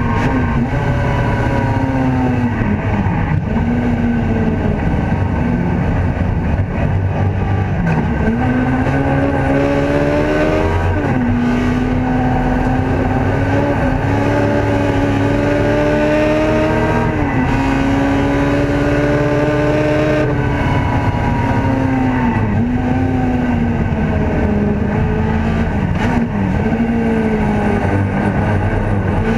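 Ford Escort race car's engine at full racing effort, heard from inside the cockpit: its note climbs steeply and drops sharply again and again as the driver works up and down the gears.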